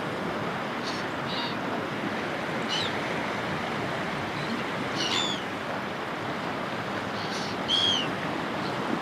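Steady wash of sea waves breaking on a shore, with seagulls calling over it: a scattering of short, down-curving cries, the loudest near the end.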